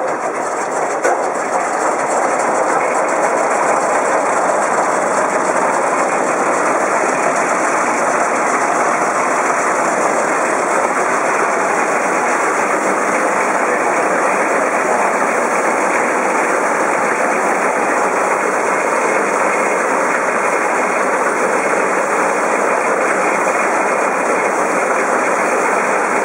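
A 100-year-old custom belt sander running and sanding a wooden table leg: a loud, steady rushing noise with no clear pitch, building over the first couple of seconds and then holding even.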